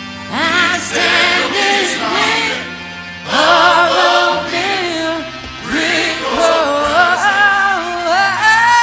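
A song playing: a sung melody in phrases over sustained bass notes.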